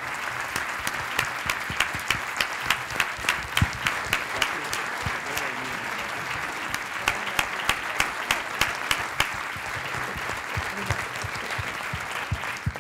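A large audience giving a standing ovation: dense, sustained applause. In two stretches a few seconds long, one person's claps close by stand out at a steady beat of about three a second. The applause dies away sharply at the very end.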